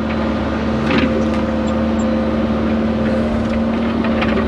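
Hyundai excavator's diesel engine running steadily with a constant hum, heard from inside the cab while the bucket grades soil.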